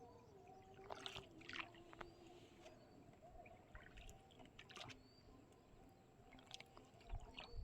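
Faint water splashes and drips around a small boat, over the low steady hum of a distant motorboat engine.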